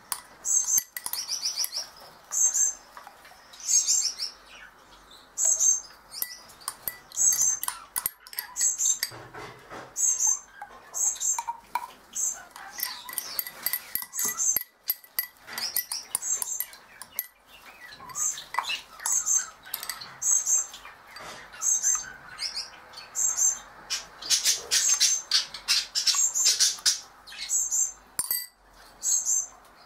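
Small pet bird chirping over and over, short high calls about once a second, busier for a few seconds near the end. Light clicks and scrapes of a spoon in a glass of mashed feed.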